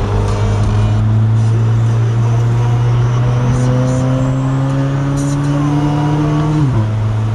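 C8 Corvette Z06's flat-plane-crank V8 running under way, its drone climbing slowly in pitch, then dropping sharply at a gear change about six and a half seconds in.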